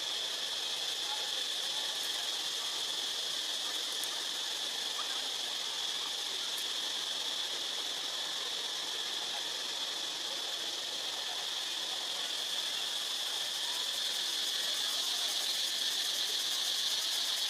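Steady high-pitched drone of insects, one unchanging tone over a constant hiss.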